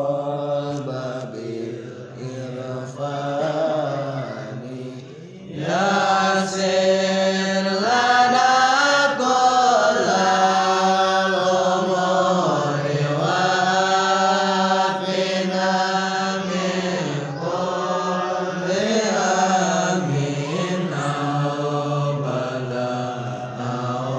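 A gathering of men chanting a sholawat together, a Muslim devotional song, on one slow melody. A softer passage gives way about five and a half seconds in to the full group singing louder.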